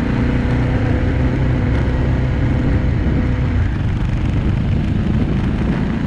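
Small Suzuki motorcycle's engine running under way, with wind and road noise. The engine note holds steady for the first three and a half seconds or so, then becomes less even.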